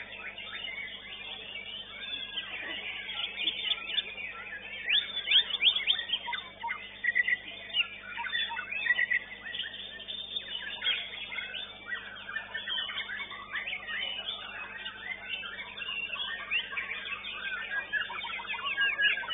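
Many caged songbirds singing at once, a white-rumped shama (murai batu) among them: a dense, overlapping stream of rapid chirps and whistles, busiest a few seconds in.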